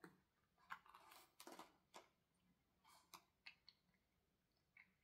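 A cat gnawing on dried silvervine (matatabi) fruit: faint, irregular crunching and clicking.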